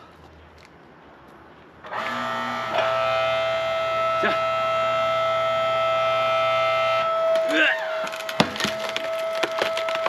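Hydraulic log splitter starting about two seconds in with a loud, steady whine as the ram drives into a log. The tone shifts after about five seconds and the wood gives way with several sharp cracks and splintering.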